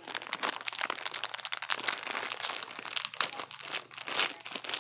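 Thin clear plastic toy bag crinkling and crackling as hands grip it and pull it open.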